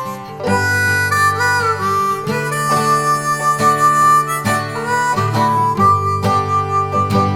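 Background music: a harmonica playing sustained and bending notes over a guitar accompaniment.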